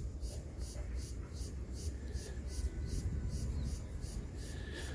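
An insect chirping in a fast, even, high-pitched rhythm of about four pulses a second, over a steady low rumble.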